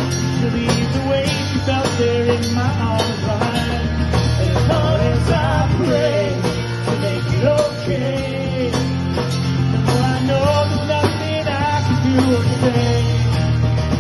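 Live rock band playing an instrumental passage: drum kit, bass guitar and strummed guitars, with a lead line of bending, gliding notes over the top.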